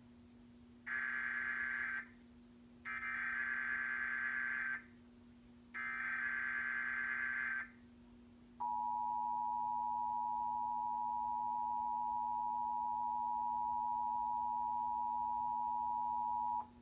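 Emergency Alert System broadcast tones: three short bursts of SAME header data, a harsh electronic screech, then the EAS two-tone attention signal, a steady dual-tone alarm held about eight seconds that cuts off suddenly. They announce a Required Monthly Test of the alert system.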